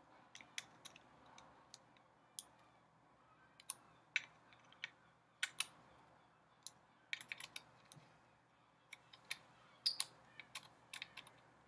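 Faint, irregularly spaced clicks and ticks of a tiny PH000 precision screwdriver working on the small hot shoe mounting screws of a Canon 5D Mark II body, tightening them to cure a wobbly hot shoe.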